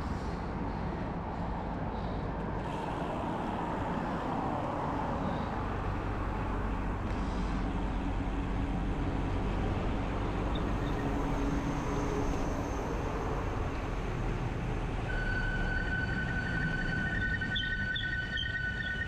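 Steady wind and rolling road noise from a road bike ride, picked up by the bike-mounted action camera's microphone. In the last few seconds a few thin, steady high tones join in.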